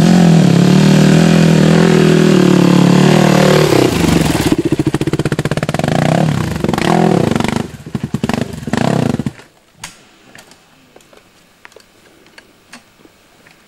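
Dirt bike engine running hard under load on a steep rutted climb, its pitch falling as it bogs down, then chugging in uneven bursts of revs. It cuts out suddenly a little over nine seconds in, the engine stalling on the hill, leaving only faint clicks.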